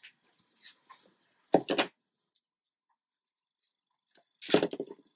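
Hands handling die-cut card and foam pieces on a cutting mat: scattered rustles and light clicks, with two louder rustling bursts about a second and a half in and near the end.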